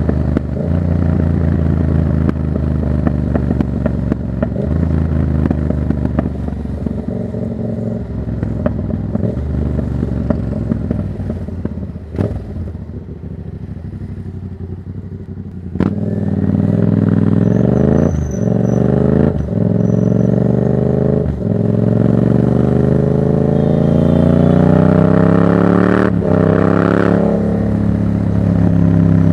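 Yamaha MT-07's 689 cc parallel-twin engine through a Black Widow exhaust with no dB killer, running steadily at first, then quieter off the throttle. About halfway through it pulls hard through the gears, its pitch climbing in each gear with a sharp crack at every shift, then drops back near the end.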